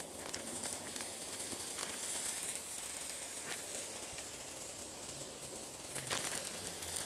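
Bacon strips sizzling on a hot flat-top griddle: a steady hiss with a few faint crackles.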